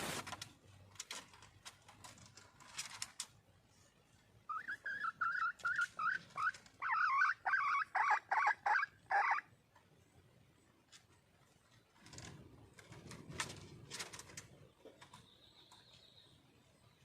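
Junglefowl hen calling for a mate: a quick run of clucking notes, lasting about five seconds and growing louder in its second half. A sharp knock comes at the start, and rustling follows a few seconds after the calls.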